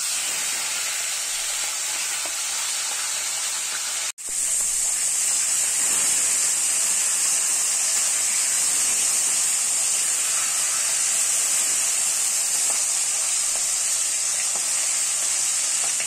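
Rohu fish heads sizzling as they fry in hot oil in a wok: a steady loud hiss that breaks off for an instant about four seconds in.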